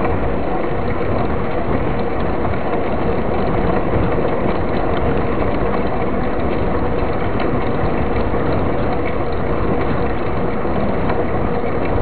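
Mountain bike riding fast on asphalt, heard from a camera mounted on the bike: a steady rush of tyre and wind noise with a continuous mechanical clicking rattle from the bike.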